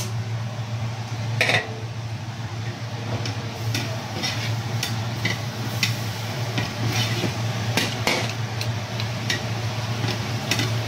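Metal ladle scraping and knocking against a wok as squid and vegetables are stirred in a simmering, steaming sauce. The strokes are irregular, with a soft sizzle and a steady low hum underneath.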